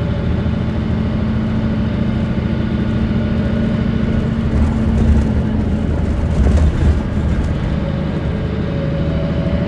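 Running sound inside a 2005 Mitsubishi Fuso Aerostar city bus (PJ-MP35JM), its diesel engine droning steadily under way. A deeper rumble swells in the middle, then eases off.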